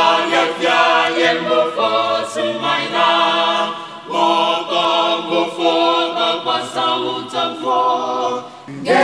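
Mixed a cappella choir of male and female voices singing in harmony without instruments, in sustained phrases with brief breaks about four seconds in and just before the end.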